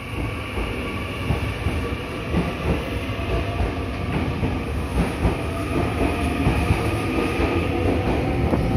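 Meitetsu 9500 series electric train pulling out past the platform, its wheels clattering over the rail joints and the noise growing louder as it gathers speed.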